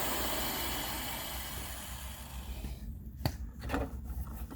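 Steady hiss of a handheld torch heating a screwdriver, fading out about two and a half seconds in, followed by a few light clicks and taps of handling.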